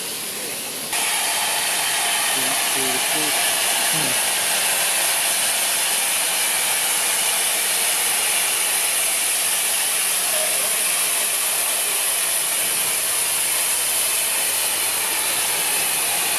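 Steam locomotive letting off steam: a steady, loud hiss that starts suddenly about a second in and holds without a break.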